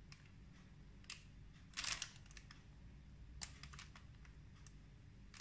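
Piping bag squeezed to pipe icing: a few faint, scattered crackles and clicks, the loudest about two seconds in, over a low steady hum.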